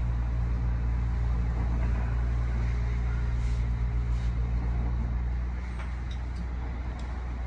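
Cab sound of a 1928 Kawasaki-built wooden streetcar with nose-suspended traction motors running slowly on street track: a steady low drone from the tram's drive and running gear that drops in level about five and a half seconds in.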